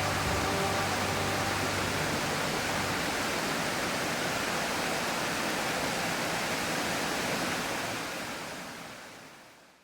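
Steady rush of a waterfall, an even hiss with no separate splashes, fading out over the last two seconds. A few held music notes die away in the first second or so.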